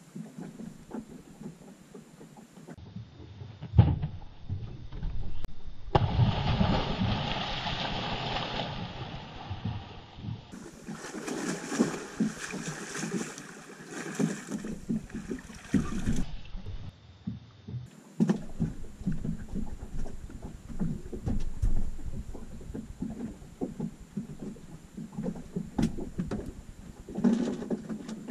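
Water splashing and slapping against the hull of a small fiberglass boat in uneven swells, loudest in the middle stretch.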